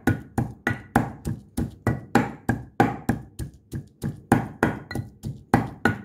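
Wooden pestle pounding garlic and parsley in a glazed ceramic mortar: a steady run of knocks, about three to four a second, some with a short ring from the bowl.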